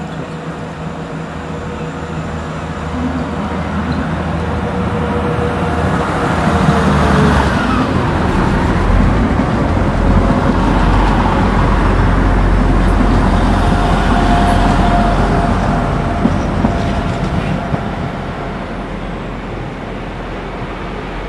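Diesel passenger train running along the platform: a deep engine rumble with wheel and rail noise builds up, is loudest midway as the coaches go by, then eases off as it draws away.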